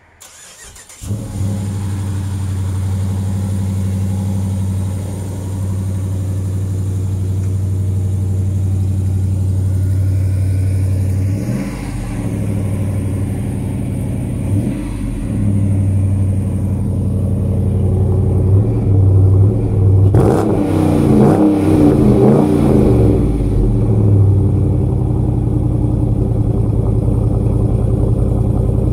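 2017 Dodge Challenger R/T V8 with a Borla aftermarket exhaust starting up about a second in with a loud flare, then idling. It is revved briefly twice in the middle and several times in a row around twenty seconds in, then settles back to a steady idle.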